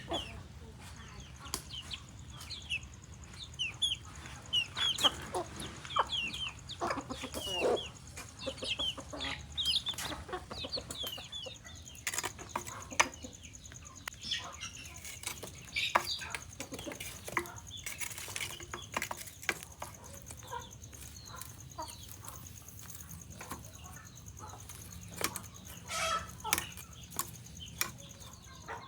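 Chickens clucking and calling on and off, mixed with scattered sharp clicks and taps.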